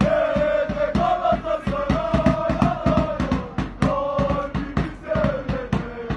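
Group of football supporters chanting a terrace song in unison over a steady rhythmic beat of sharp hits.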